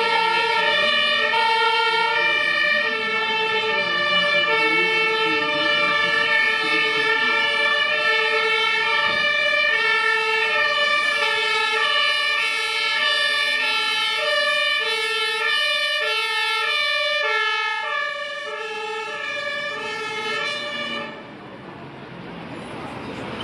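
German fire-service two-tone siren (Martinshorn) sounding, alternating steadily between a high and a low tone, from fire vehicles driving up with blue lights on. It cuts off about 21 seconds in, leaving the quieter engine noise of the vehicles.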